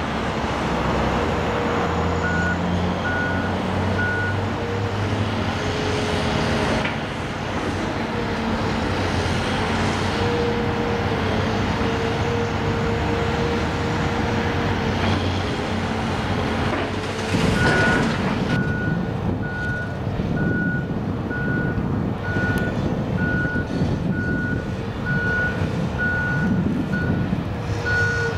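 A heavy machine's diesel engine runs steadily while its backup alarm beeps about once a second, for a couple of seconds near the start and again from about two-thirds of the way through to the end. A loud clatter comes just before the second run of beeps.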